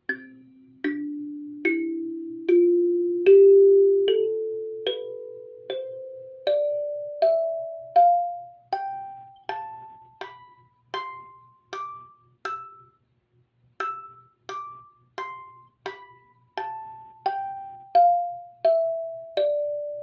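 Gecko box kalimba played one tine at a time, note by note up the scale from the lowest note to the top and then back down. Each note rings out and fades before the next.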